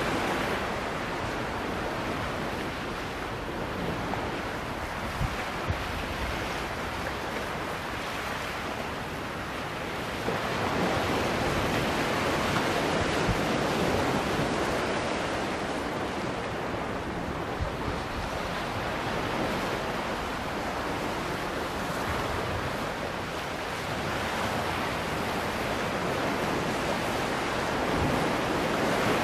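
Sea waves washing against a rocky shore: a steady surf hiss that swells louder about a third of the way in and again near the end, with wind on the microphone.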